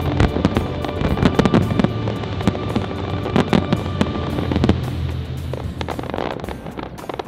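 Aerial fireworks display: rapid bangs and crackling bursts over music, thinning out and getting quieter after about five seconds.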